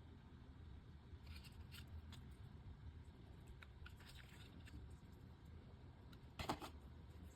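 Faint handling sounds of packaging being unboxed: scattered small clicks and rustles, with one brief, louder crackle near the end.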